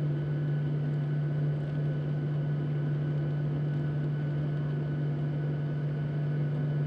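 Steady cabin noise inside a Boeing 737-700 taxiing after landing: a constant low hum over an even rush of engine and air noise.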